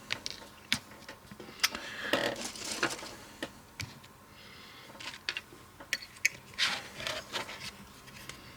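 Irregular small clicks, taps and short scrapes of hand tools and small electronic parts being handled on a workbench, while a diode is taken from a spare circuit board to be soldered in.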